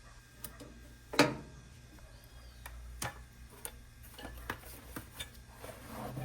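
Irregular clicks and knocks from handling a microwave oven and its packaging, about half a dozen, the sharpest about a second in, with a rustle near the end.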